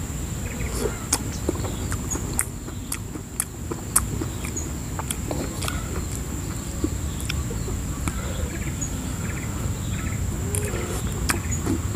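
A person eating with a spoon from a metal pan: scattered sharp clicks of the spoon against the pan and mouth sounds of chewing. Under it runs a steady high-pitched insect drone.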